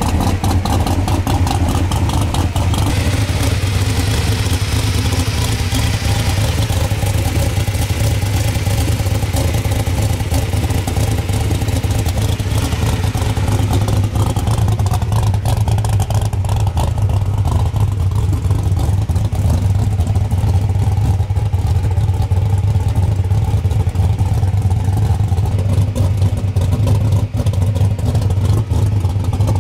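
A car engine idling steadily, a loud, even low rumble.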